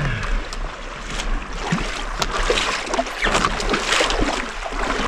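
Shallow water splashing and sloshing around an inflatable paddleboard as someone wades beside it and climbs on to kneel, with many small irregular splashes.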